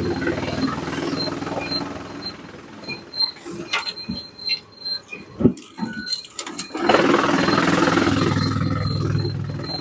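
Sawmill machinery running, with scattered knocks and clunks in a quieter stretch midway, then louder, denser machine noise from about seven seconds in.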